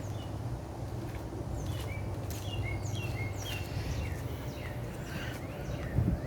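Birds giving many short, high chirps, some falling and some rising in pitch, over a steady low outdoor rumble. A single brief knock comes near the end.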